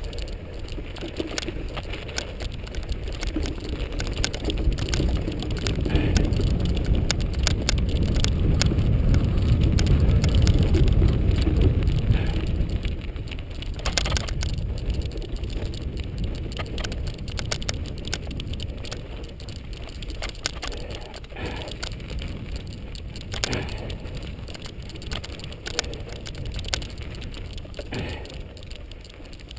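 Mountain bike riding a dirt single-track: tyres crackling over the trail and the bike rattling over bumps, with a steady stream of small clicks. Wind rumbles on the microphone, swelling to its heaviest about a third of the way in, then easing.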